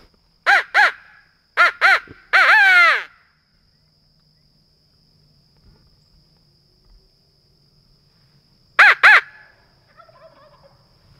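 Crow locator call blown close by in loud, harsh caws: two short caws, two more, then a longer drawn-out caw, and after a pause of about five seconds two more near the end. The call is used to shock a turkey gobbler into answering.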